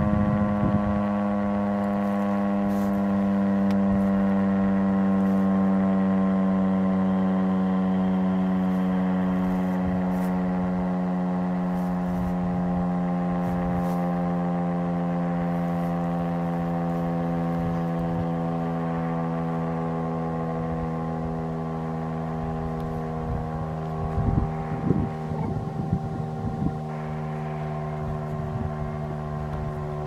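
STH-10 outdoor warning siren sounding a steady alert tone, a rich multi-note sound whose pitch sinks slowly throughout while it gradually gets quieter. Near the end, wind gusts buffet the microphone.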